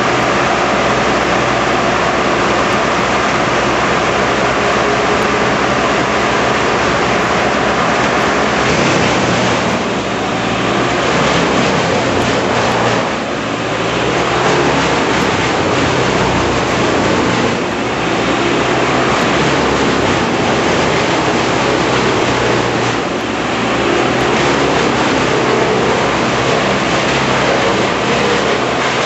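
Heavy tree-removal machinery running loudly and steadily, an engine drone under a dense mechanical noise, dipping briefly a few times.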